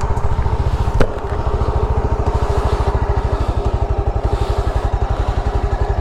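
Motorcycle engine idling steadily with an even, rapid pulse, and a single sharp click about a second in.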